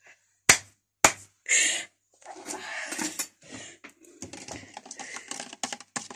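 Spoon stirring a drink in a clear plastic cup, clicking against the cup in quick irregular taps, with two louder sharp clicks about half a second and a second in.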